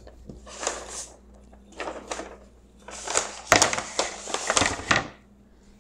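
Large paper plan rustling as a quarter-inch plywood piece is lifted, slid and set back down on it, in several bursts, with a sharp knock about three and a half seconds in.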